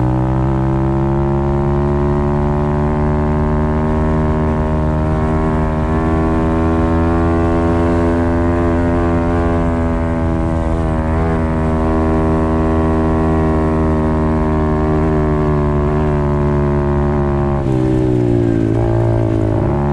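Apollo RFZ 125cc pit bike's single-cylinder four-stroke engine held at high revs on a flat-out top speed run, its pitch creeping slowly upward. Near the end the revs fall away, then climb again.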